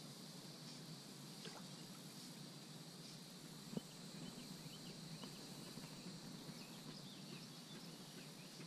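Faint open-air ambience on a pond: a steady high-pitched hiss with scattered faint ticks, and one sharp click a little under four seconds in.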